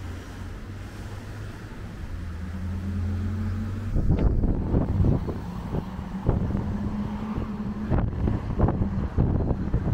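Street traffic: car and truck engines running and passing through an intersection, with a steady low hum. From about four seconds in, wind buffets the microphone with uneven low thumps.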